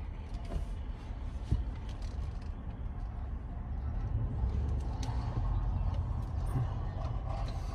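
Low rumble inside a 2017 Chevy Tahoe's cabin as its engine runs, growing somewhat louder about four seconds in.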